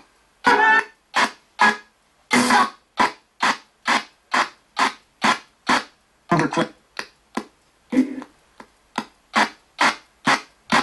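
RTC ghost box scanning through radio stations, giving a rapid, even stutter of clipped radio fragments and static about three times a second, with a few slightly longer snatches.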